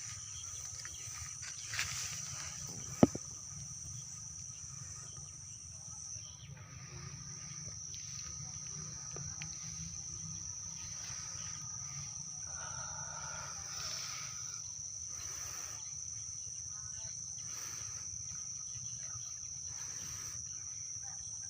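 Night insects droning steadily at a high pitch over a low background rumble, with one sharp click about three seconds in.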